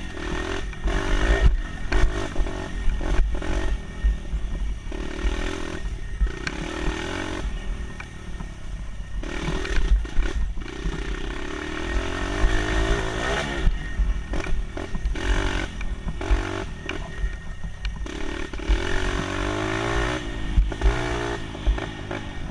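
Dirt bike engine running under way, its pitch rising and falling again and again as the rider revs and shifts, with wind buffeting on the microphone.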